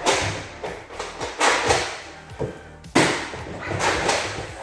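Background music with several sharp thumps from a Nerf blaster fight.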